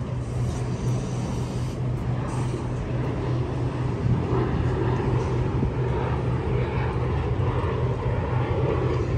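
A Sydney Trains B-set (Waratah Series 2) double-deck electric train standing still, its onboard equipment giving a steady low hum.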